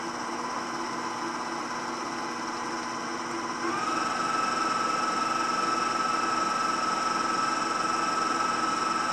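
KitchenAid stand mixer's motor running steadily with a whine, its wire whisk beating butter into cooled meringue for Italian buttercream. About four seconds in, the mixer steps up to a higher speed: the whine jumps higher in pitch and gets louder.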